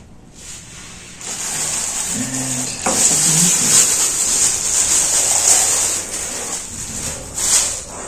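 Thin clear plastic wrapping crinkling and rustling as a compact hairdryer is unwrapped, starting about a second in.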